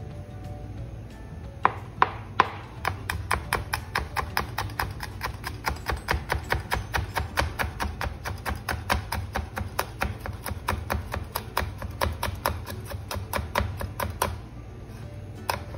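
Kitchen knife finely chopping green chillies on a cutting board. Three separate knocks come first, then a fast, even run of chopping strokes, about four a second, which stops shortly before the end.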